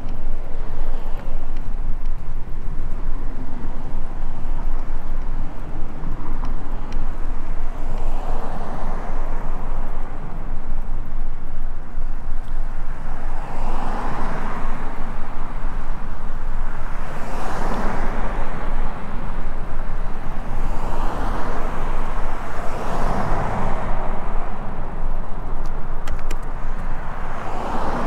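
Bicycle ride outdoors with a steady low rumble of wind on the microphone. Several times, a swell of noise rises and falls over about two seconds, like cars passing by.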